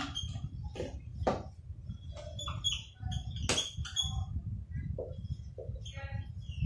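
Marker pen squeaking and scratching on a whiteboard in short strokes as words are handwritten, over a steady low hum.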